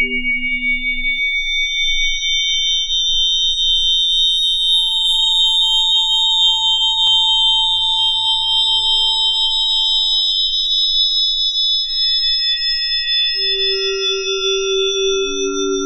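A single strike of a 22-inch Wuhan wind gong, time-stretched 35 times with noise reduction so that only its separate sustained tones remain. Several steady high pitches overlap and fade in and out, the loudest a high tone that holds through most of it. Low hum tones sound at the start and again near the end, and there is a brief click about seven seconds in.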